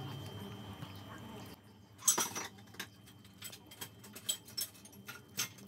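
A dog eating cake crumbs from its dish: a series of sharp clicks and clinks against the dish, the loudest about two seconds in.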